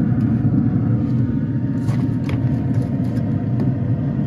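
A steady low rumbling hum of a motor running, with a few light clicks about two seconds in.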